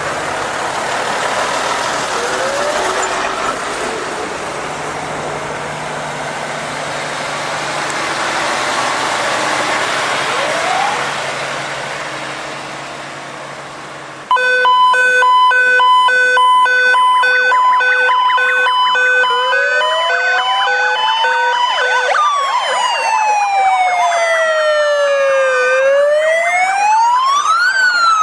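Fire-service vehicle sirens. The first part is a heavy fire truck's engine with street noise. About halfway the level jumps suddenly to a loud pulsing siren tone, soon joined by several wailing sirens rising and falling over one another.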